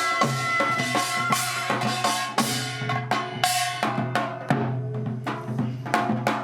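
Korean pungmul folk percussion band playing: drums and metal gongs struck in a fast, dense rhythm, with a held high tone fading out about a second in.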